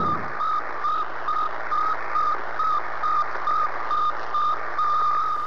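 Sputnik 1's radio signal received over radio static: a high beep repeating about twice a second over a steady hiss, the beeps running closer together near the end.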